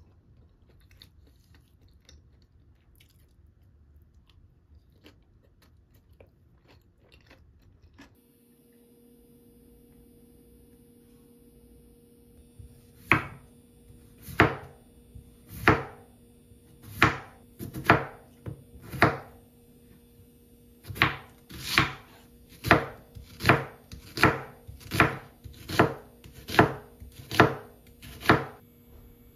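Chef's knife cutting through an onion onto a wooden cutting board: a run of sharp chops, at first about one every second and a half, then after a short pause closer to one a second.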